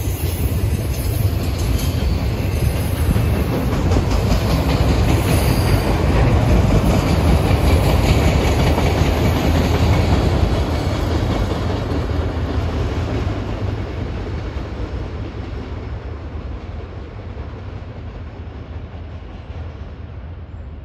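Freight train cars, autoracks and boxcars, rolling past on steel wheels over the rails: a steady rumbling rush that is loudest about halfway through, then fades as the train moves away.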